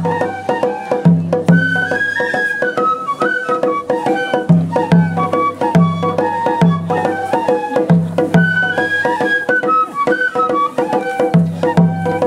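Japanese festival hayashi music played live: transverse flutes carry a stepping melody over a repeating drum pattern on a taiko, with sharp clicks mixed in.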